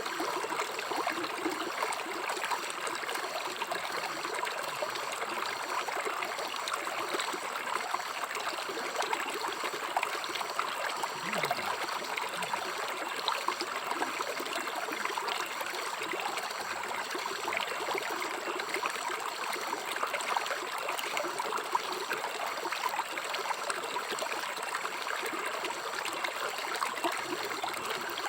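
River water flowing and trickling over stones in a steady, even rush with fine bubbling detail.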